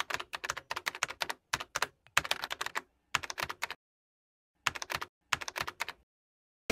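Computer keyboard typing: quick runs of key clicks, broken by a pause of about a second a little past the middle and a shorter one near the end.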